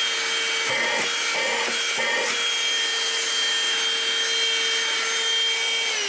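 RIKIN cordless handheld vacuum cleaner running at full speed: a steady high motor whine over the rush of sucked-in air, a little noisy, with a few brief rustles about one and two seconds in.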